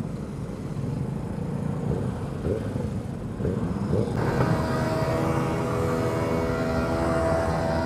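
Motorcycle engine running with a low, uneven rumble. About four seconds in, the sound changes abruptly to a steadier, higher hum with a clear pitch, as of an engine held at constant revs.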